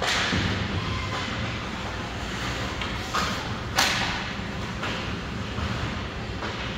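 Ice hockey play: four sharp hits over steady rink noise, one at the start, two close together about halfway through (the second the loudest), and one more shortly after.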